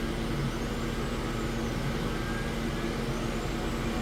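CO2 laser engraver running a job: a steady fan and air noise with a low hum, and a motor whine that rises and falls about every two seconds as the laser head sweeps back and forth.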